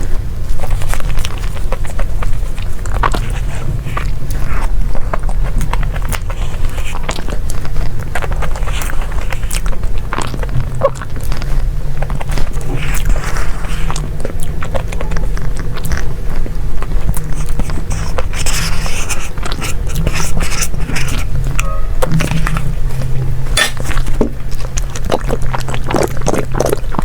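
Close-miked eating of desserts: biting and chewing with many short, sharp clicks, over background music carried by a low bass line that changes pitch every second or so.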